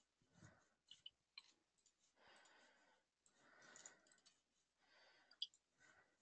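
Near silence: faint room tone with a few soft clicks, the sharpest about five seconds in.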